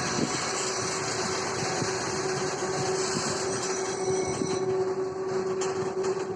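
Steady mechanical running noise with one constant humming tone.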